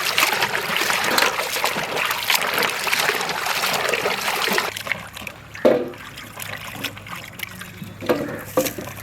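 Water pouring and splashing during washing, for about four and a half seconds, then a few light knocks.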